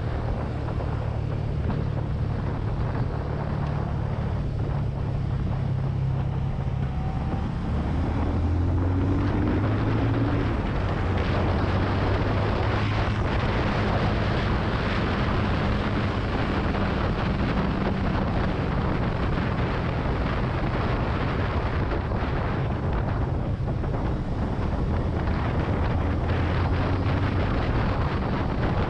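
Benelli TNT 25's single-cylinder engine running while riding, with wind rushing over the microphone. The engine note shifts about eight seconds in.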